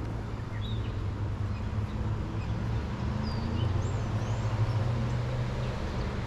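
Outdoor ambience: small birds give short, high chirps now and then over a steady low hum.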